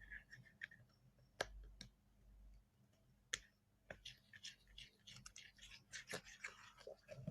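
Faint, scattered clicks and small knocks, then a denser run of light crackling and ticking a little past halfway: small handling sounds while glue and activator are worked for slime.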